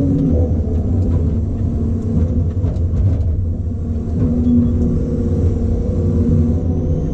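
Diesel engine of a log loader running steadily under hydraulic load, heard from inside its cab. A few knocks come about two to three seconds in.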